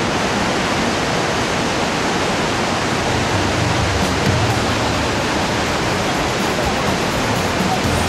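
The Rhine Falls, a large river waterfall, rushing with a loud, steady, even roar of falling and churning water close by. A low hum thickens under it for a moment about halfway through.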